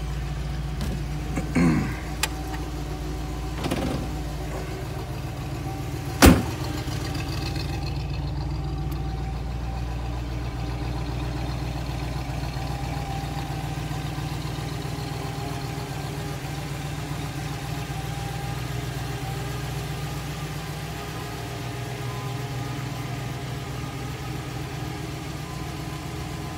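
1961 Chevrolet Corvette's 283 V8 idling steadily, a minute or so after a cold start. A few knocks in the first seconds, the loudest a sharp thump about six seconds in.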